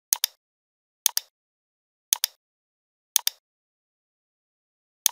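Computer mouse button clicks, each a quick press-and-release double tick, coming about once a second four times, with a fifth right at the end.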